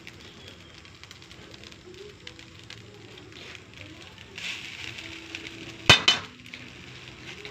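Food sizzling quietly in a hot wok as cooked rice is spooned in, with a brief louder sizzle about four and a half seconds in. Just after, two sharp clinks a fraction of a second apart as the serving spoon is knocked against the metal wok.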